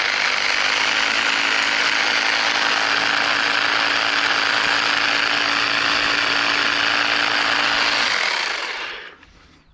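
EGO battery-powered pole hedge trimmer running at steady speed with a constant buzzing hum from its reciprocating blades. About eight seconds in it is switched off and winds down to a stop.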